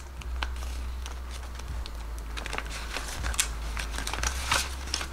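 Paper bills rustling and crinkling as they are handled, with scattered light taps and clicks, over a steady low hum.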